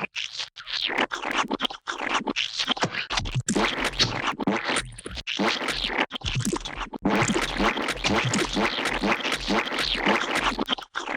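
A rapid, irregular string of gooey splat and squelch sound effects, dense and loud, broken by many brief gaps.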